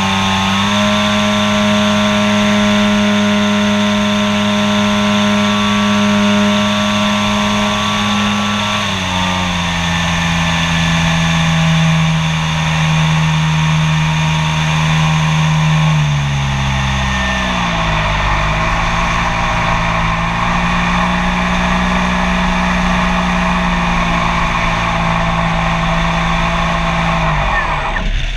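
Model airplane's motor and propeller running steadily, heard from on board the plane. The pitch steps down about a third of the way in and falls again a little past halfway as the throttle is eased, then drops sharply near the end as it comes in to land.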